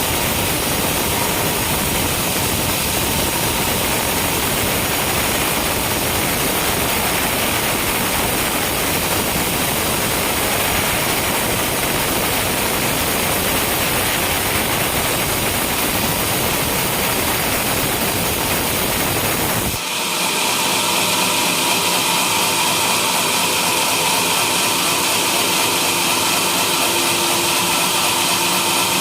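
Homemade sawmill running and cutting a coconut palm log, a loud steady saw-and-motor noise. About 20 seconds in the sound changes abruptly to a higher, thinner whine with less low rumble.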